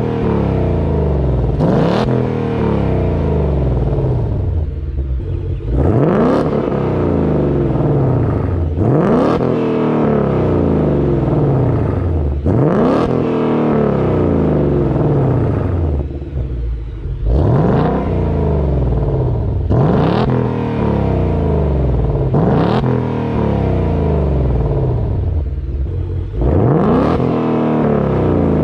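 2020 Ford Mustang GT's 5.0 V8 through its active exhaust, revving hard about eight times. Each rev climbs quickly and falls back, every three to four seconds.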